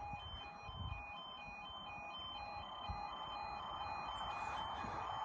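Level crossing warning alarm sounding a repeating two-tone warble. Over the second half, the noise of an approaching train, a Class 156 diesel unit, builds steadily.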